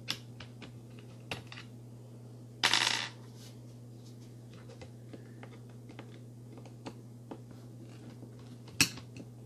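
Small metal clicks and clinks of a hex driver and screws as the skid-plate screws are backed out of an RC crawler's chassis. There is a brief louder clatter about three seconds in and a sharp clink near the end, over a steady low hum.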